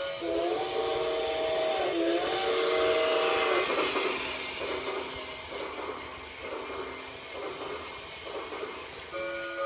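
Toy steam train set sounding its whistle sound effect in two long toots, then the loud running noise of the locomotive as it passes close. The running noise fades to softer pulses about once a second as it moves away.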